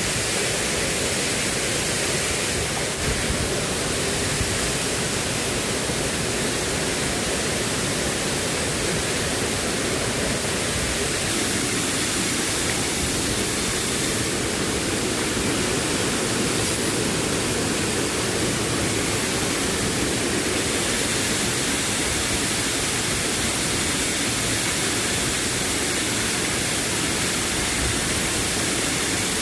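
Steady, even rushing of water, unbroken and at a constant loudness throughout.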